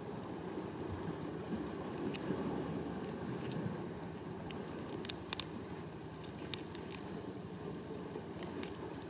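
Steel tweezers gripping and prying goose barnacles off a rock: scattered sharp clicks and scrapes of metal on shell, the loudest a quick pair a little past halfway, over steady low background noise.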